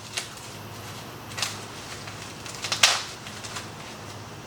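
Bait molds and their packaging being handled: a few sharp clicks and knocks, the loudest about three seconds in, over a low steady hum.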